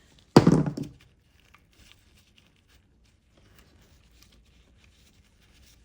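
Faint small clicks and rustles of a Torx screwdriver working screws and plastic parts of a Dyson V10 cleaner head being handled. One brief loud sound comes about half a second in.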